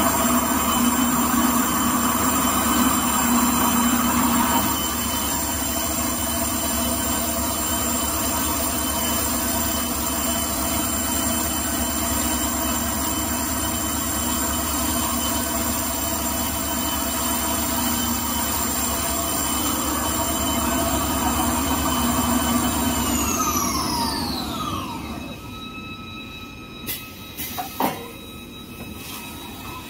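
Automatic kitchen-towel rewinding machine running with a steady hum and several high whines. About 23 seconds in it spins down, all its tones falling in pitch over a couple of seconds, leaving a quieter hum with a few sharp knocks near the end.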